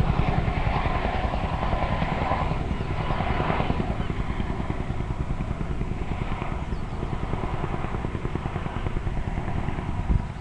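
Wind buffeting the microphone, a fast low rumbling flutter, over a steady noisy drone.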